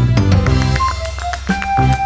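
Background music with a drum kit beat: bass drum, snare and cymbals under sustained instrumental notes.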